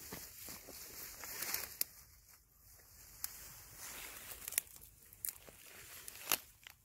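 Footsteps pushing through dense ferns and dry brush: steady rustling and crackling of leaves and twigs, with about five sharp snaps of twigs in the second half.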